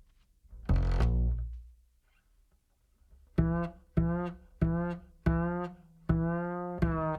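Background music of single plucked low string notes: one note about a second in, a short pause, then a steady run of evenly spaced notes.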